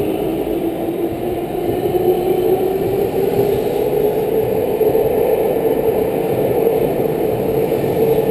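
Tobu 50050 series electric train moving past on the platform road, its traction-motor whine rising in pitch over the first couple of seconds as it gathers speed and then holding steady, over a dense rumble of wheels on rail.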